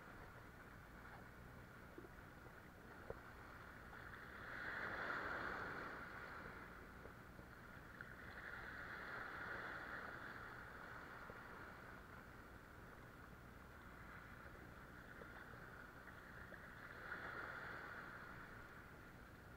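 Sea waves washing and breaking against shoreline rocks, surging three times: about five seconds in, around ten seconds, and near the end.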